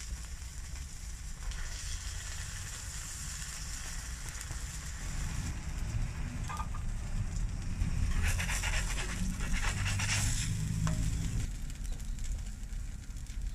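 Flour-tortilla quesadillas sizzling on a flat-top griddle in barbacoa fat, a steady frying hiss that turns into louder spattering crackle between about eight and eleven seconds in. A low rumble runs underneath.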